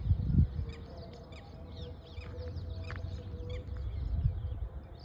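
Several birds chirping, with short calls scattered throughout, over a steady low rumble and a brief low thump at the start.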